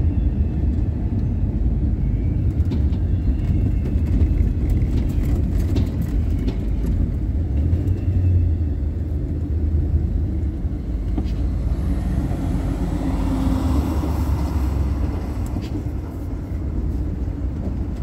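A car driving, with a steady low rumble of road and engine noise. A broader hiss swells and fades about two-thirds of the way through.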